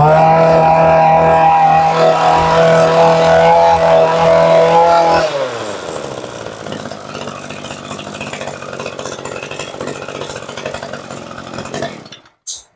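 Kioritz 26 brush cutter's small two-stroke engine held at high revs for about five seconds. The throttle is then released, the revs fall away to a steady idle, and the engine cuts out shortly before the end.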